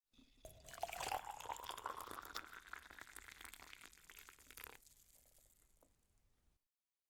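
Liquid being poured into a glass, with a pitch that rises as it fills. The pour stops abruptly about five seconds in, leaving a faint trickle that fades out.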